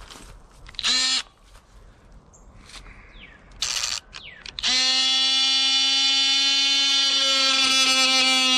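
Dewalt DCS356 brushless cordless oscillating multi-tool with a wood-cutting blade: two short blips of the trigger, then it runs steadily from about two thirds of the way in with a high, even buzz, cutting into a 2x4.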